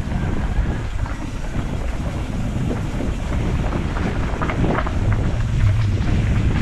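Mountain bike riding down a dirt trail: wind buffeting the camera microphone over the rumble of the tyres on the ground, with a few short clatters about four and a half seconds in.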